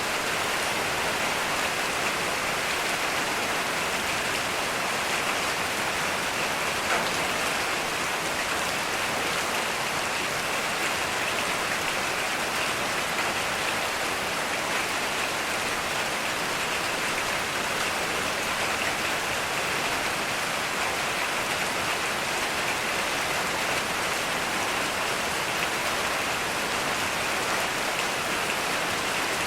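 Heavy rain falling steadily, an even hiss of drops with no thunder.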